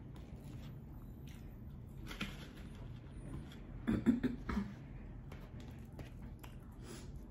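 Mouth sounds of eating air-fried cheese fries with the fingers, with a short cluster of louder mouth noises about four seconds in.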